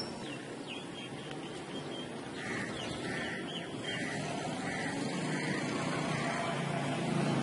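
Steady outdoor background rumble with faint high chirps early on. Through the middle comes a string of about six soft notes, evenly spaced about two a second.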